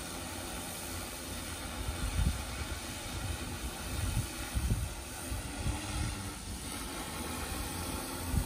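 Six-rotor carbon-fibre hexacopter with a DJI E2000 propulsion system flying overhead: a steady whirring hiss from its propellers with a faint even hum under it. A few low thumps on the microphone about two seconds in, near the middle and at the end.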